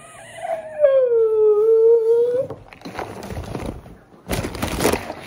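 A long howling wail that dips and then rises in pitch, lasting about two seconds. Near the end comes a rustle and then a loud crinkle of a paper microwave-popcorn bag close to the microphone.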